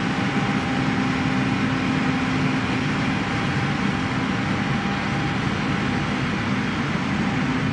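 Steady, loud noise like running machinery, with a faint low hum under it.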